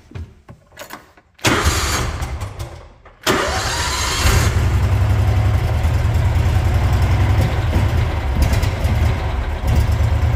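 John Deere Gator's two-cylinder gasoline engine being started cold: the starter cranks it for about two seconds, then it catches abruptly and runs steadily at a low, even pitch.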